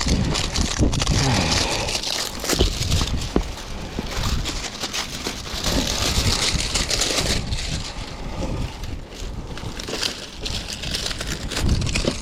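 Irregular crackling and crinkling of plastic being pulled and rubbed, with scraping, as the ridge of a metal roof is cleaned of sticky residue.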